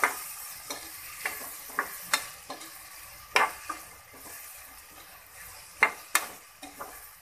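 Chopped onions sizzling in hot oil and butter in an aluminium pressure cooker as they are sautéed, stirred with a spatula that scrapes and knocks against the pot at irregular moments.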